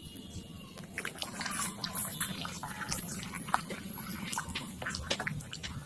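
A metal ladle stirring a creamy liquid with bamboo shoot pieces in an aluminium wok: sloshing, with scattered clicks of the ladle against the pan.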